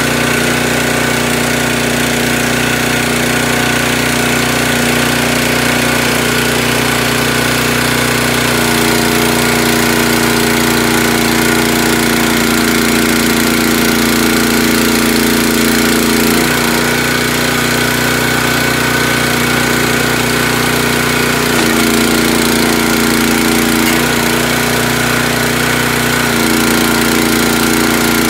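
Small gas engine of a Champion 37-ton hydraulic tire doubling machine running steadily. Its note changes for about seven seconds a third of the way in and for shorter spells twice near the end, as the hydraulic ram is worked to press one tire inside another.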